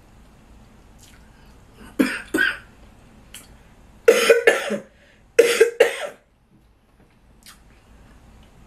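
A woman's dry coughing: two coughs about two seconds in, then two fits of several coughs each in quick succession. It is a dry cough that she says keeps going away and coming back.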